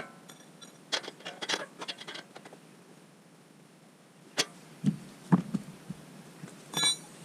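A wrench working on the bolts of a car's steel skid plate: irregular metal clicks and knocks, a cluster of them about a second in and more spaced out later, with one brighter ringing clink near the end.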